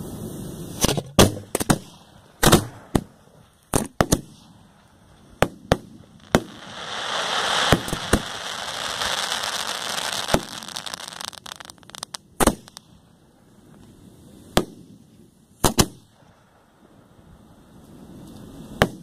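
Aerial fireworks going off: a string of sharp bangs at irregular intervals, tightly bunched in the first few seconds. About six seconds in comes a few seconds of dense crackling, then single reports spaced further apart.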